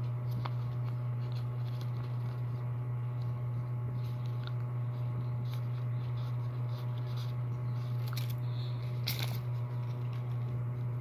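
Paper and plastic bag wrappers rustling and crinkling faintly as they are handled, with a louder crinkle about nine seconds in, over a steady low hum.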